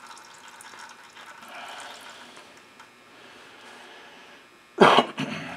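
Used engine oil trickling and dripping from a loosened oil filter on a Kawasaki 17 hp K-series engine into a drain pan, a faint steady pouring as the crankcase drains. A brief louder sound about five seconds in.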